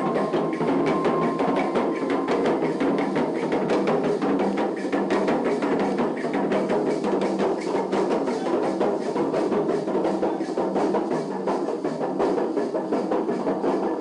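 Traditional drum ensemble playing a fast, steady dance rhythm of many quick, sharp strokes a second, without a pause.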